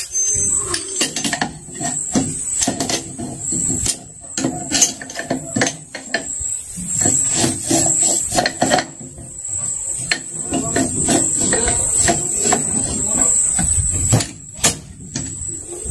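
Hand tools and metal parts of a Yamaha 40 hp outboard motor knocking and clanking during its teardown, in irregular sharp knocks and clatters.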